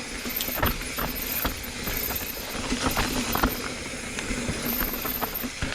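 Mountain bike descending a steep rocky trail: tyres running over dirt and rock with irregular knocks and rattles from the bike, and the ratchety ticking of the coasting freewheel hub.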